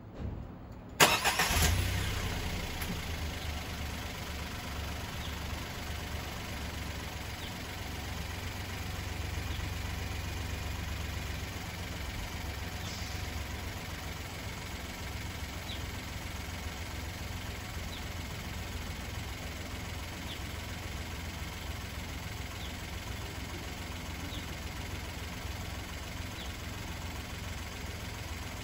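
Suzuki Jimny JB64's 660 cc turbocharged three-cylinder engine started about a second in with a sharp burst, then idling steadily with the air conditioning off.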